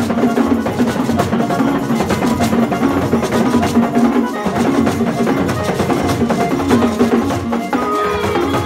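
Several drums beaten with curved sticks in a fast, dense, unbroken rhythm of pitched strokes.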